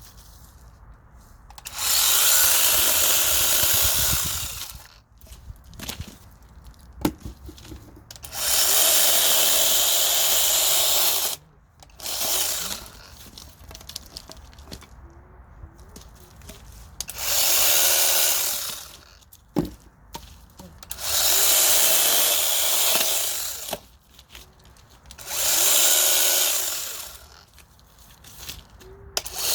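Mini cordless chainsaw with a brushless motor cutting wood in five spells of two to three seconds each, its motor whining steadily while the chain bites. Between cuts there are short pauses with small clicks.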